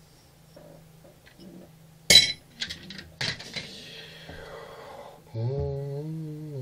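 Small metal jaw harp parts and a hand tool clinking together: one sharp clink about two seconds in, then a few lighter clinks that ring briefly. Near the end a low, steady humming tone with overtones begins.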